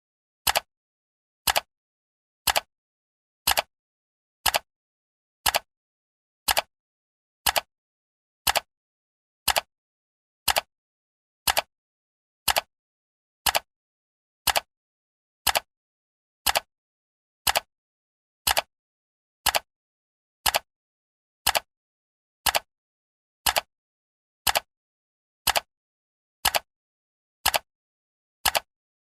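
Clock ticking sound effect marking each second of a countdown timer: one sharp tick a second, evenly spaced, silent between ticks.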